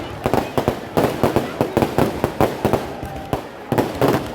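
Fireworks and firecrackers going off in a rapid string of sharp bangs, several a second, with a short lull about three seconds in.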